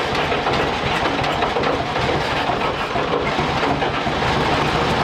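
A WWII-era Chevrolet truck's inline-six engine running steadily, with a fast clatter. It has just fired up on a shot of ether, after decades of sitting, and is fed only by the fuel in its flooding carburetor.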